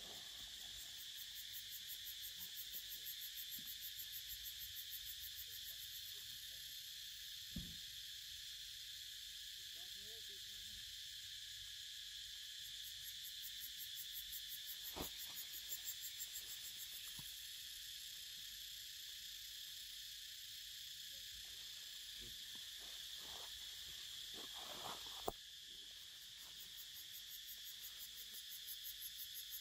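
Forest insect chorus: a steady high buzz that swells and fades in pulsing stretches. It is broken by a few sharp clicks, the loudest near the end.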